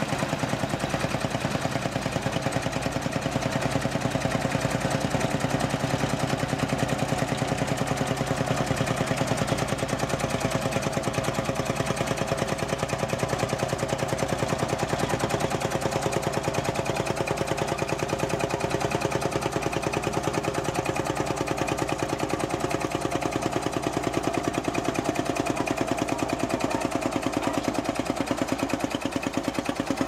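Vintage Track Marshall crawler tractor's engine running steadily as it pulls a plough through stubble, with a rapid, even exhaust beat.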